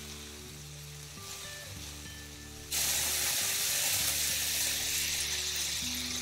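Shrimp sizzling in hot olive oil in a nonstick pan, with soft background music. The frying hiss jumps abruptly to a loud, steady sizzle almost three seconds in.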